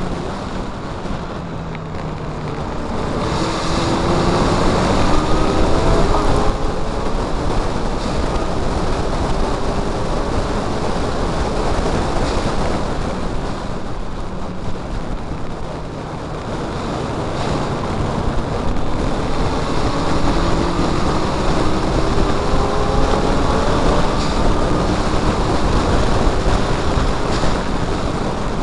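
Mazda MX5's four-cylinder engine running hard at racing speed under a heavy roar of wind and road noise. Its pitch climbs twice, near the start and again in the second half, and eases off in between.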